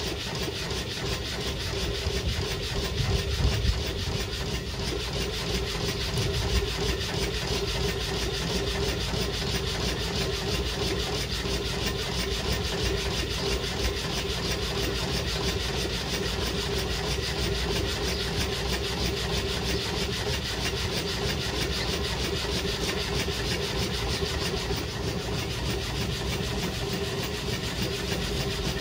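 Homemade alpha-type Stirling engine running steadily and driving a belt-coupled car alternator: a continuous rhythmic rubbing and sliding, with a steady hum, while the engine is still warming up.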